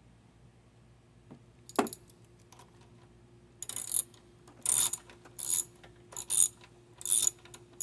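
A hand socket ratchet clicking in short runs, about one stroke a second, as it backs out the bolts that hold the carburetor on a mower engine. A single sharp click comes about two seconds in, before the ratcheting starts.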